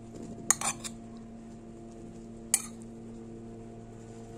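A metal spoon clinking against dishes while butter is scooped out: three quick clicks about half a second in and a single click about two and a half seconds in, over a faint steady hum.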